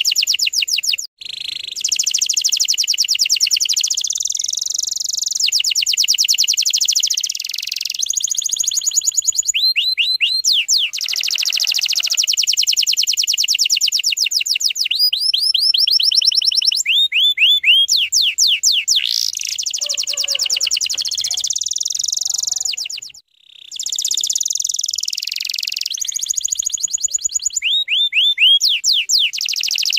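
Domestic canary singing a long, continuous song of rapid-fire trills and sweeping whistled notes. The song breaks off briefly twice, about a second in and again about three-quarters through.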